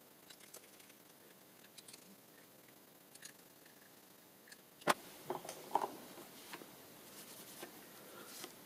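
Faint small ticks and clicks of a small screwdriver turning tiny screws into the aluminium end cap of a DRO glass-scale rail. A sharp knock about five seconds in, then faint handling and rustling of a cloth rag.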